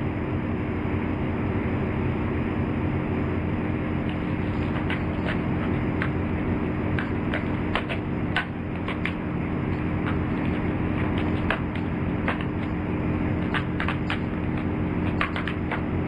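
500-ton hydraulic press running with a steady hum as its ram crushes a plastic Rubik's Cube. Sharp cracks and snaps of the plastic cubies breaking start about four seconds in and come more often toward the end.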